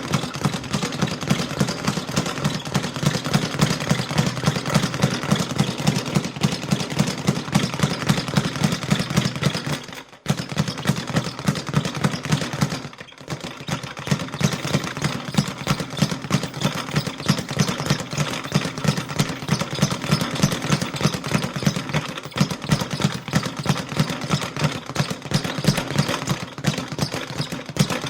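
Light boxing punches landing in a rapid, continuous rattle of dull thuds, with short breaks about ten and thirteen seconds in.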